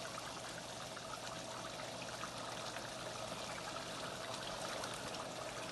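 Pot of beef curry simmering on the stove: a faint, steady bubbling hiss.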